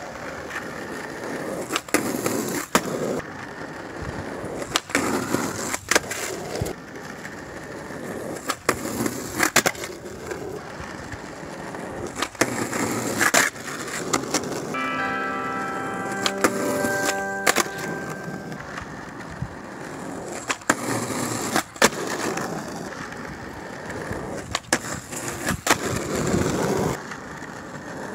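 Skateboard wheels rolling over rough asphalt, broken by repeated sharp clacks as the board and wheels strike the pavement and concrete pads. About halfway through, a short run of ringing notes at several pitches sounds over the rolling.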